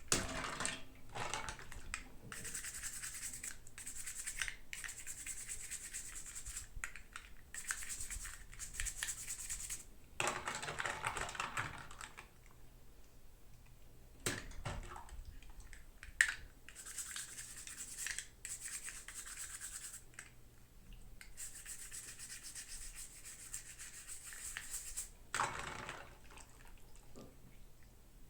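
Toy packaging being handled and rubbed: repeated scratchy rustling in stretches of a second or two, with short pauses and a few sharp clicks.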